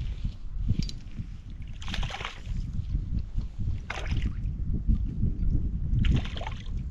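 Wind buffeting the microphone with a constant low rumble, broken by three short rushing surges of noise about two seconds apart.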